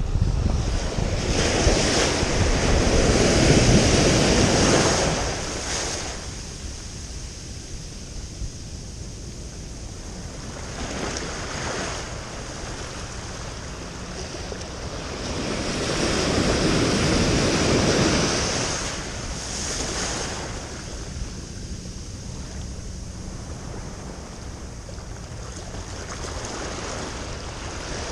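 Ocean surf washing in and out in the shallows, with two larger waves rushing in, one at the start and one about halfway through, and smaller washes between. Wind buffets the microphone.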